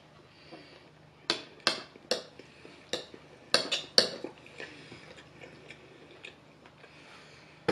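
A metal spoon scooping food off a plate, clinking and scraping against it: a quick run of about seven sharp clinks between one and four seconds in, then a few faint taps.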